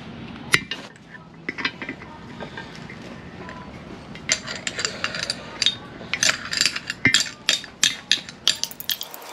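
Flat-blade screwdriver prying and scraping at an old seal stuck in an aluminium transmission housing, giving a run of metal clicks and scrapes. The clicks are few at first and come quick and dense from about four seconds in. The seal is held fast by corrosion.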